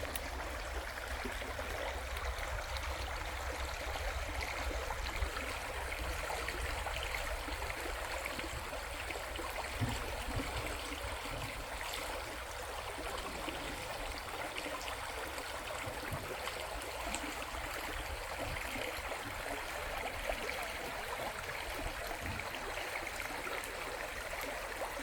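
Shallow river running steadily, an even rush and burble of flowing water, with a low rumble underneath that is stronger in the first half.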